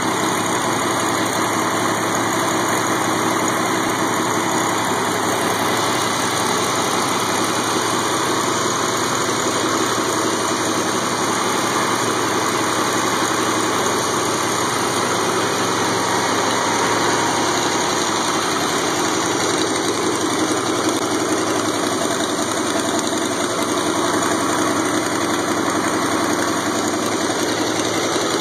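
Carburetted V8 engine on an engine run stand, idling steadily.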